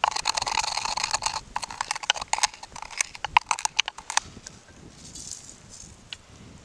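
Wooden pestle crushing and grinding peppercorns in a wooden mortar: quick crunching with wood knocking on wood, stopping about four seconds in.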